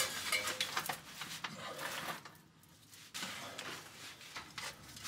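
Scattered metal clinks, scrapes and rattles of a floor jack and its chain being handled and set up under a manual transmission.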